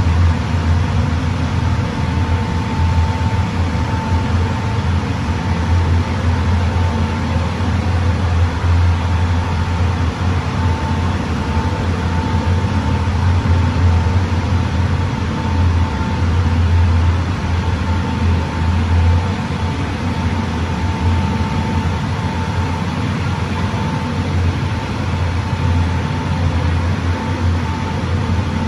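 10-ton low-NOx natural-gas-fired steam boiler running: a loud, steady low rumble with a faint high tone that comes and goes.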